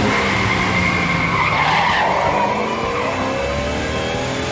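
Cartoon car sound effect: tyres screech for about the first two seconds, then an engine revs up, rising in pitch, as the car takes off.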